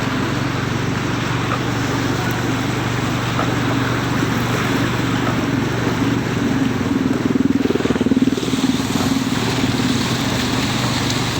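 A motor vehicle's engine running steadily while driving, with road and wind noise; the drone grows a little louder and rougher about seven seconds in.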